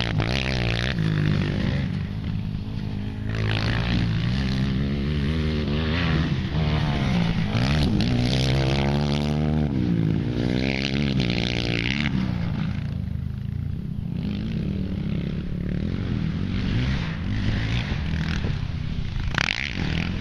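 Yamaha Raptor 250 quad's single-cylinder four-stroke engine revving up and dropping back over and over as it is ridden hard around a dirt track, its pitch rising and falling with throttle and gear changes.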